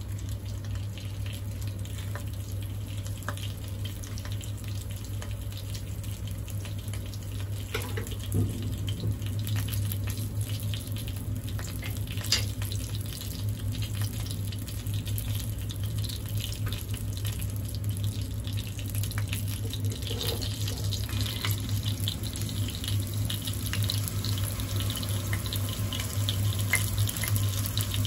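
Cumin seeds sizzling in hot oil in a wok, with scattered small pops, growing a little louder in the second half, over a steady low hum.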